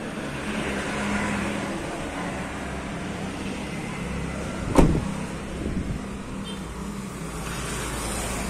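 A car door slamming shut once, sharply, about halfway through, over a steady low hum.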